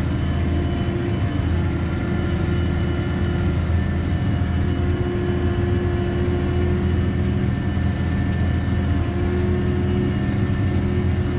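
Farm tractor's diesel engine running steadily under plowing load, heard from inside the cab as a constant drone.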